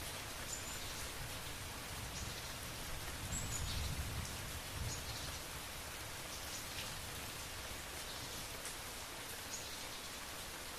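Steady rain, with a low rumble that swells about four seconds in.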